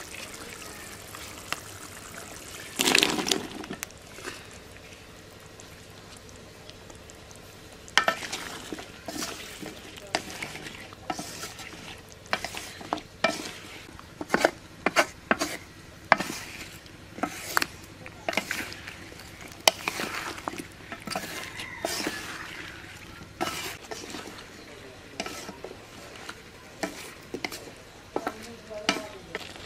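Flat wooden spatula scraping and knocking against a metal karai as kohlrabi slices are stirred and fried in masala, over a low steady sizzle. A louder burst about a second long comes about three seconds in, and from about eight seconds the scrapes and taps come thick and fast.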